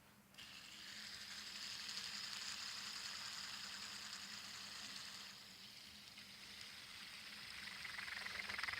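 Fidget spinner whirring on its bearing after being set spinning: a steady hissing whir that eases about five seconds in and builds again near the end.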